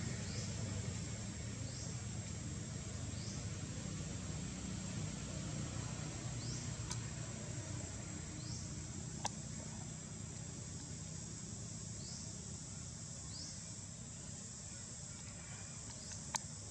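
Outdoor ambience: a steady high insect drone, with a short rising chirp repeating about every second and a half, over a low steady rumble. A few sharp clicks stand out, the loudest about nine seconds in and near the end.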